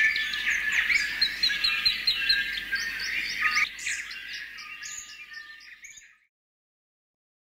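Several birds chirping and singing at once, one repeating a quick string of high notes, fading out about six seconds in.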